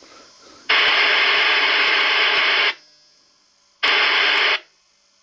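Uniden 300 CB radio hissing with loud static in two bursts, one of about two seconds and one of under a second, each cutting in and out abruptly: the receiver's squelch opening on stations keying up with no speech coming through.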